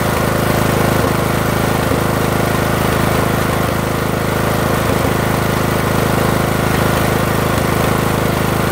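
Briggs & Stratton 18.5 hp lawn tractor engine running steadily at idle, with a brief stumble every second or so at uneven spacing: it runs rough.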